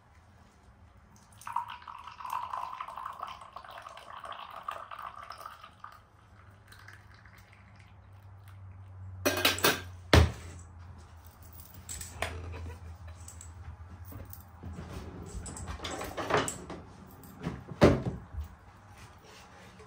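Tea poured from a stainless-steel teapot into a glass tea cup for several seconds. Then sharp clinks and knocks as the pot is set down on the ceramic hob and pans and dishes are handled, over a low hum.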